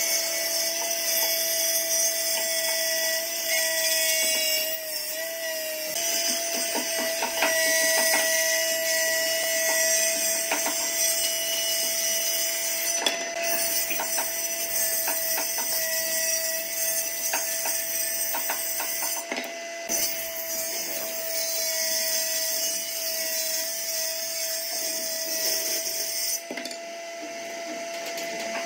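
Table saw on a combination woodworking machine running and ripping a rough, bark-edged board: a steady motor hum under the blade's high cutting noise, with a few brief breaks.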